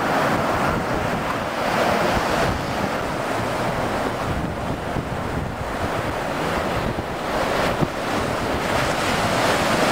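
Steady rush of wind buffeting the microphone, mixed with breaking surf and rushing water, with no distinct engine note standing out.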